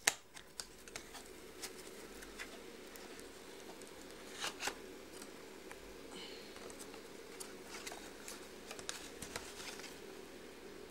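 Handling noise: scattered light taps and clicks, with a louder double click about four and a half seconds in, over a steady low hum.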